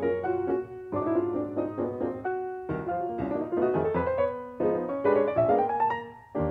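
Piano music, a melody of held notes with a rising run near the end.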